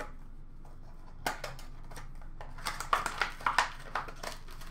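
Hands handling hockey cards and their packaging: a single click about a second in, then a quick run of clicks and rustles in the second half.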